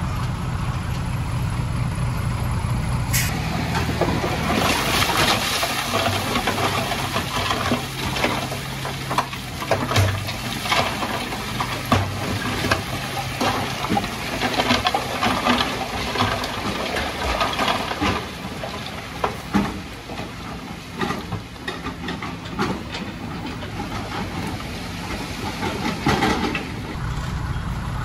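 Dump truck's engine running as the hydraulic hoist tips the loaded bed, with a load of broken rock and dirt sliding out and clattering down the slope in many irregular knocks from about four seconds in.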